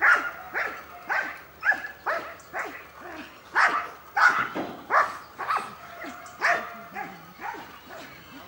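Belgian Malinois-type shepherd dog barking in a steady run of short, sharp barks, about three every two seconds, during protection training.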